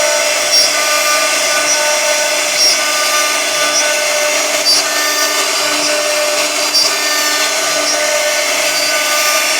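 CNC router carving wood: a steady cutting noise with whining tones that shift pitch in steps as the machine moves.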